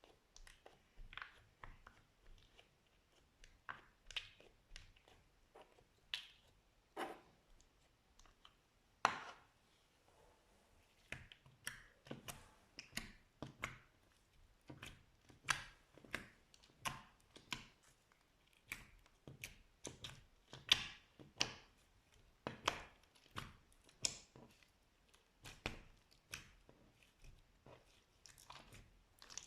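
Slime being squished and pressed: a run of short, sticky pops and crackles at an irregular pace of about one or two a second, with a brief lull around ten seconds in.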